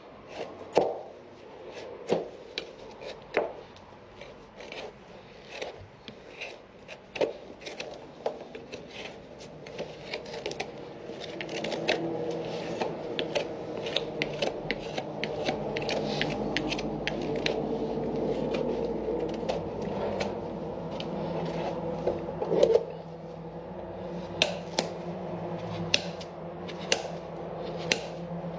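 Hoof knife paring and scraping a Shire horse's hoof: a run of short, crisp cuts and scrapes at an uneven pace. A steady hum comes in underneath about a third of the way through.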